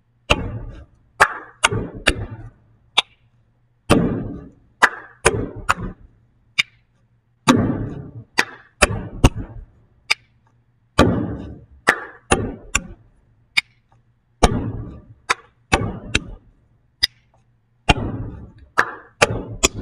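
A hand-rhythm pattern played on a wooden desk: pats, claps, hands tapping down on the desktop and a finger snap, the same short sequence repeated about every three and a half seconds.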